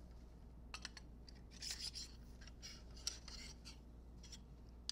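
Faint rustling and rubbing as a clip-on handlebar tube is picked out of its plastic wrapping and handled, with a few small clicks.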